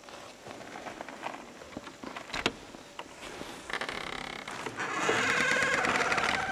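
Scattered clicks and a sharp knock as a log shrine's wooden door is handled and opened. Then loud wooden creaking from about four seconds in, getting louder near the end.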